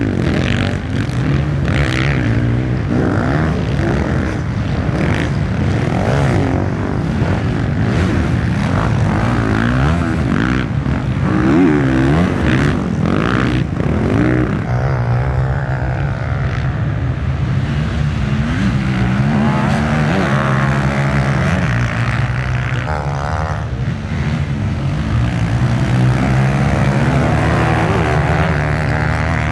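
Dirt bike engines racing on a sand track, revving up and down as bikes pass close by one after another.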